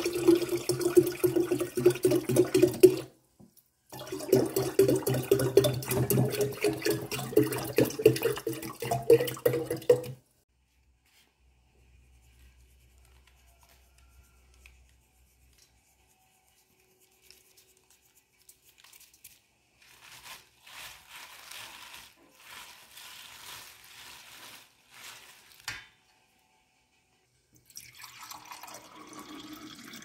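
Tap water running into a glass pitcher of orange juice for about ten seconds, with a short break about three seconds in; its pitch rises a little as the pitcher fills. Near the end, a quieter pour of juice into a glass.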